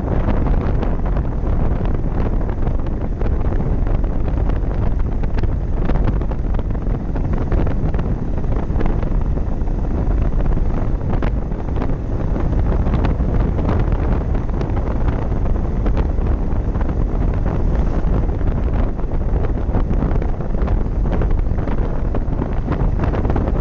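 Steady wind rushing over the microphone of a moving motorcycle, with vehicle road noise beneath.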